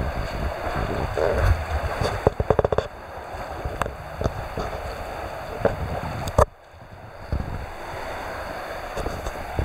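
Wind buffeting the microphone over choppy sea water, a rough gusty rumble, with a quick run of sharp clicks a little after two seconds and a sudden short dip in level just after six seconds.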